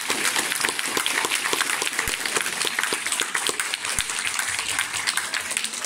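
Audience applauding after a piece: dense, steady clapping from many hands that eases slightly near the end.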